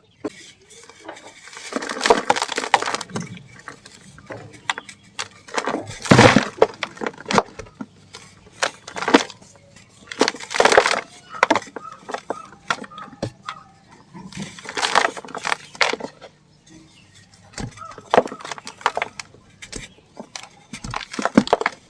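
Dried chunks of sand, dirt and cement crumbling and breaking apart in repeated crackly bursts every few seconds, with small gritty clicks between them.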